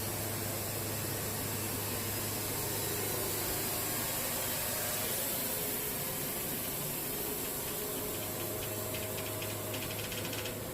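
Wood-Mizer portable band sawmill running steadily, a hissing rush over a low hum. Near the end a fast ticking rattle joins in.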